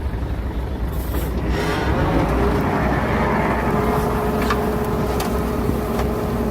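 Heavy diesel earthmoving machinery running steadily. It gets a little louder about two seconds in, when a steady whine joins, and there are a few sharp clicks.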